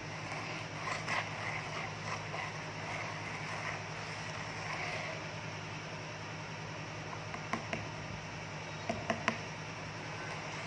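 Paydirt being worked in a gold pan: faint swishing with soft knocks, and a few sharp clicks of material against the pan in the second half, over a steady low hum.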